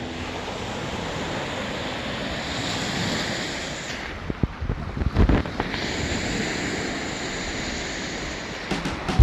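Lake Erie waves washing on the shore, a steady rush, with wind buffeting the microphone in low rumbling gusts a little before the middle.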